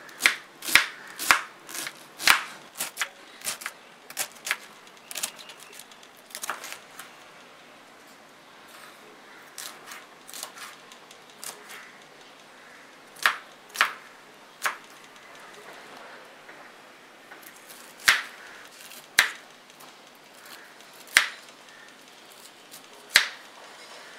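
Kitchen knife chopping cabbage, green bell pepper and cauliflower on a wooden cutting board: irregular sharp knocks of the blade striking the board. They come in short runs with pauses between, densest in the first couple of seconds.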